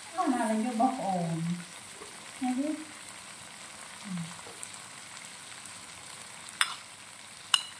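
Food frying in a pan with a steady sizzle as it is stirred. A brief wordless voice sounds in the first couple of seconds, and two sharp clicks come near the end.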